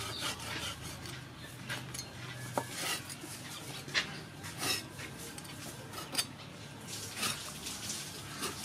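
Steel cleaver cutting and scraping through a raw stingray on a wooden chopping block, giving irregular sharp knocks and scrapes of the blade against the fish and board.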